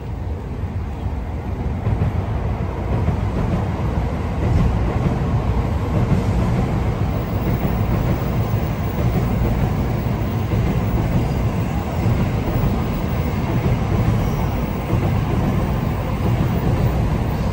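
Shinkansen bullet train running past on the elevated viaduct: a steady deep rumble that builds about two seconds in and then holds.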